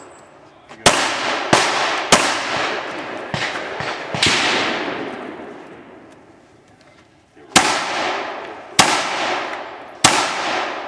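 Semi-automatic pistol firing about seven shots in an uneven string: three quick shots, another a couple of seconds later, then after a pause of about three seconds three more spaced about a second apart. Each shot is a sharp crack followed by a long ringing echo that fades over a second or more.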